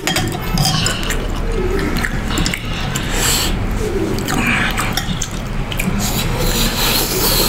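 Close-miked wet slurping and chewing of pork thukpa noodle soup, with many small clicks of spoons and forks in ceramic bowls.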